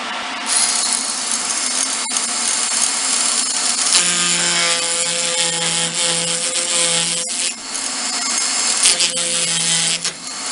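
A Proxxon vibrating power carver buzzing as its small chisel scrapes a spiral groove into a wooden rod, with a dry rasping of wood. A humming note comes and goes in the second half as the cut bears down.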